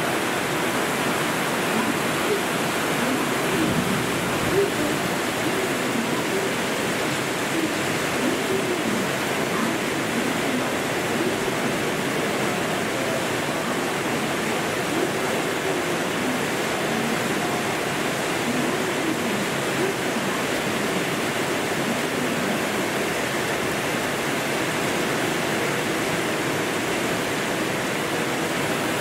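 Torrential cloudburst rain pouring down in a steady, even hiss.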